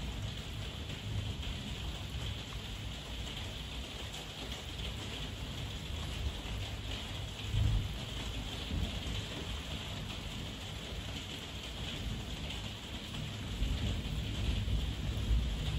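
Heavy rain falling in a steady hiss, with low rolling thunder rumbling underneath. The rumble gives a louder peak a little past halfway and swells again near the end.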